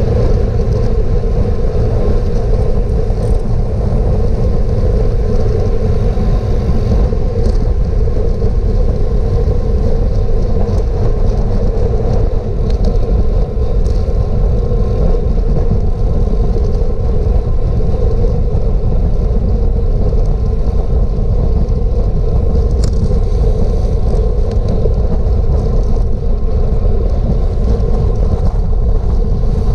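Steady, loud wind rush and rumble on an action camera's microphone while riding a racing bicycle at speed, with a few faint clicks.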